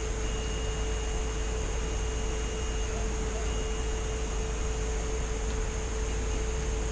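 Steady background hum and hiss with a constant mid-pitched tone. A fainter, higher tone cuts out twice, once about three seconds in and briefly again.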